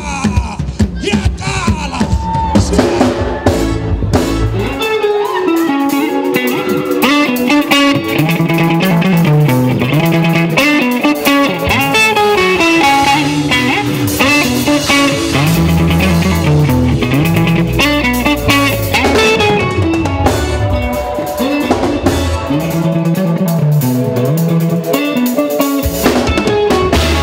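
Live band music: an electric guitar plays a melody over a drum kit and a moving bass line.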